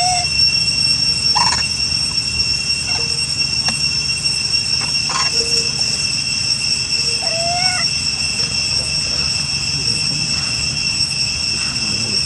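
Steady high-pitched drone of insects, in two even tones, over a low outdoor rumble. A few short rising animal calls cut through, one at the start and a small cluster about seven seconds in.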